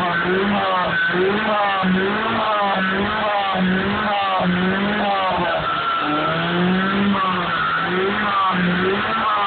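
Nissan Micra K11's four-cylinder engine revving up and down over and over, heard through its exhaust: a Janspeed centre silencer in place of the catalytic converter, with the original rear box.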